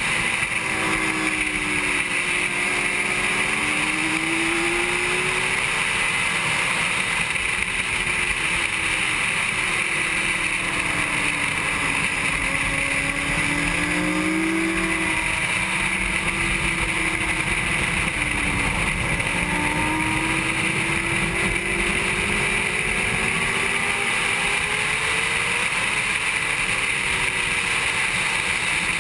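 A 2007 Honda CBR600RR's inline-four engine at racing speed, its pitch rising and falling over and over as the rider accelerates, shifts and rolls off through corners, under a steady loud rush of wind noise.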